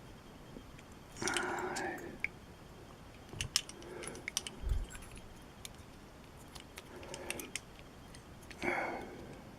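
Light metallic clicks and scrapes of lock tools and a shim working inside a challenge lock's core, scattered irregularly. A few short wordless murmurs break in between them.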